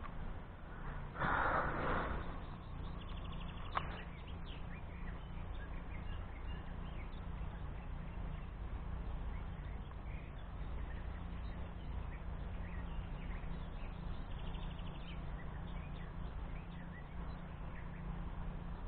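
Wind buffeting the microphone as a steady low rumble, with one loud rough noise lasting about a second and a half near the start and faint bird chirps.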